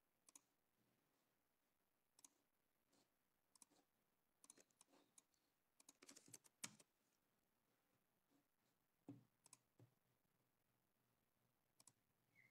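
Near silence broken by faint, scattered clicks, with a quick cluster of them around six seconds in.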